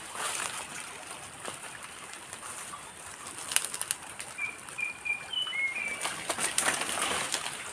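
Leaves and branches of a tibig fig tree rustling and shaking as a man climbs through it, with scattered sharp twig snaps and knocks, busiest about three and a half seconds in and again near the end.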